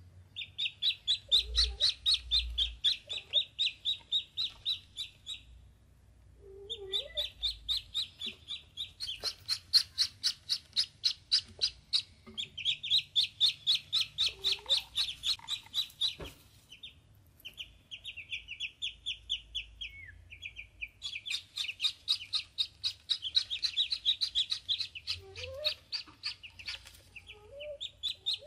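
Ducklings peeping fast and continuously, about five high peeps a second, in runs of several seconds broken by short pauses.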